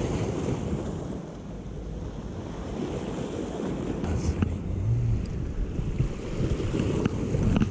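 Sea waves washing against the rocky shore, with wind buffeting the microphone. A few light clicks come through, around the middle and near the end.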